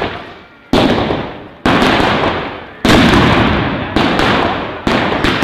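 Mascletà firecrackers (masclets) going off in the street: about six loud bangs, roughly one a second, each dying away slowly before the next.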